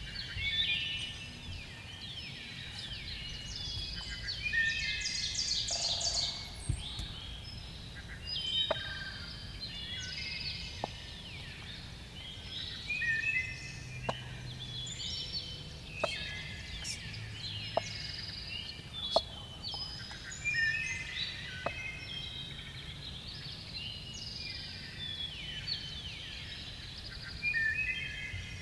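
Songbirds singing all round in a steady chorus. A strutting wild turkey gobbler close by gives several short sharp spits and a couple of brief low drumming hums.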